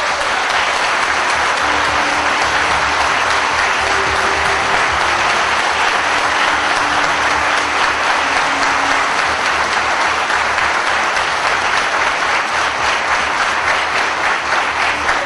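Large crowd applauding steadily, a dense unbroken clatter of many hands clapping.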